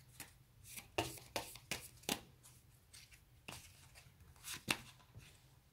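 Tarot cards being handled: a string of faint, irregular flicks and rustles as the deck is worked and a card is drawn.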